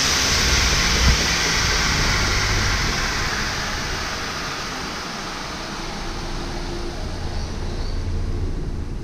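Homemade 2x72 belt grinder running with no workpiece: its 2.5 hp DC treadmill motor hums under the steady hiss of the abrasive belt, growing somewhat quieter around the middle and then picking up again.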